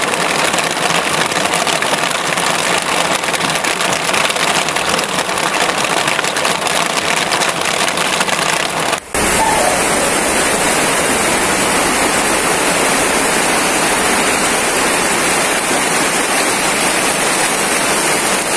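Steady rain falling, heard from under a canvas tent roof. It breaks off for a moment about nine seconds in and comes back hissier.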